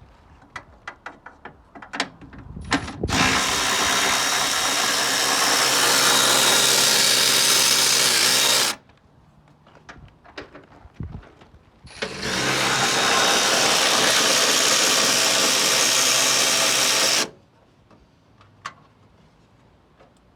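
A handheld power tool, such as a drill used to back out bolts, runs in two long steady bursts of about five seconds each, starting and stopping sharply, with a few light clicks and knocks before and between them.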